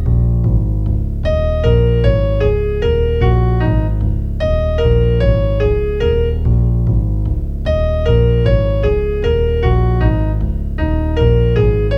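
Piano-sounding keyboard music: a single-note melody of struck, decaying notes over low sustained chords, the same short phrase repeating about every three seconds.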